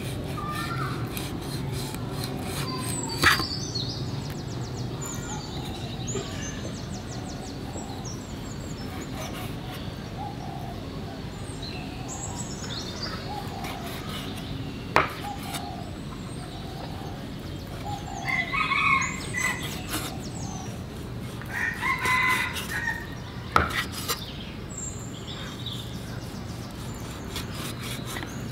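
A rooster crowing twice, in the second half. Now and then a meat cleaver chops through pork onto a wooden cutting board with a sharp knock, and small birds chirp in the background.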